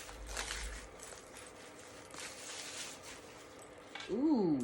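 Packaging rustling and crackling as a metal chain strap is unwrapped.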